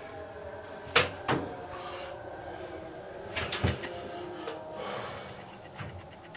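Hard knocks and clacks from work on a shower enclosure's sliding door and aluminium frame. There are two loud knocks about a second in, a short cluster of clacks a couple of seconds later, and a few light clicks near the end.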